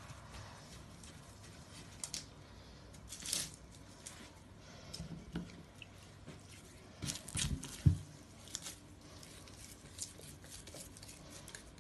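Hands handling soft bread dough in an earthenware bowl and pressing dough balls into loose wheat bran on a platter: soft rustling, crackling and squishing. Near the middle come a few louder knocks, the loudest a single thump about eight seconds in.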